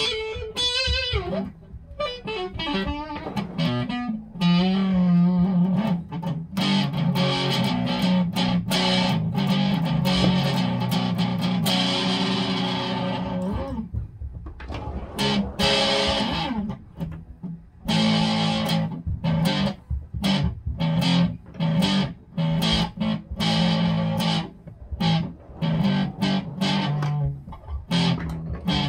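Electric guitar played through a breadboarded 1970s Muff Fuzz circuit into a Vox AC30 amp, as a test that the fuzz works. It opens with wavering bent notes, then holds sustained fuzzy chords, then switches to short choppy chords with brief gaps.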